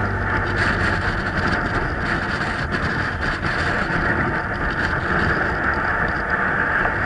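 Wind buffeting the camera's microphone on an exposed snowy ridge: a steady, rough rushing noise.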